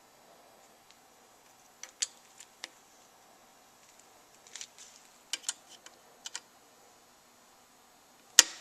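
Small scattered clicks and ticks of a hand screwdriver driving the little star-drive screws that hold the oil strainer to the engine block, with one sharp, loud click near the end.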